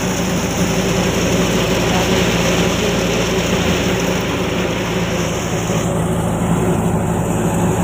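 Belt-driven wheat thresher running while wheat stalks are fed in: a loud, steady machine noise with a constant low hum.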